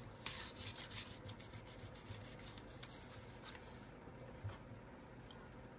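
Paper being folded and rubbed down by hand to close a glued booklet pocket: faint rubbing and rustling of paper, with one sharp click about a third of a second in.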